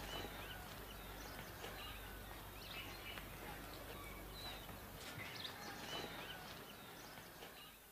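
Faint outdoor ambience with birds chirping: short, scattered calls over a steady low hiss.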